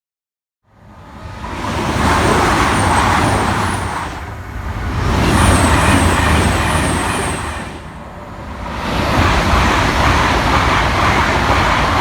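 Passenger train passing at speed: a loud rushing roar of wheels on rail that comes in about a second in and swells and dips three times, with faint quick high chirps over the top during the first two swells.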